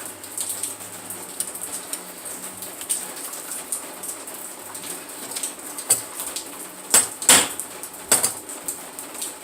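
Hammer blows on metal, driving a replacement part into a 1966 Chevrolet Impala's door hinge: light scattered taps at first, then several sharp strikes in the last few seconds.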